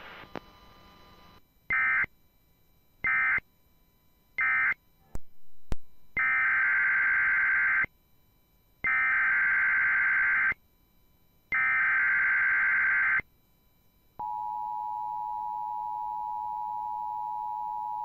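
Emergency Alert System SAME data tones: three short screeching bursts (the end-of-message code closing one alert) and a couple of sharp clicks, then three longer data bursts (the header of the next alert). Near the end the steady two-tone EAS attention signal begins.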